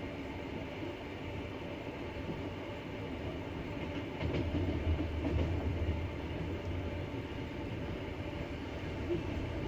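Double-decker passenger train running, a steady rumble of wheels on the rails. About four seconds in there is a knock and the low rumble swells for a couple of seconds.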